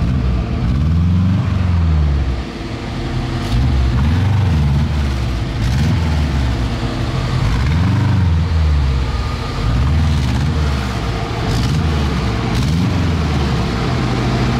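An off-road vehicle's engine revved up and let back down over and over, its pitch rising and falling about every two seconds, as the driver works the throttle on rough ground.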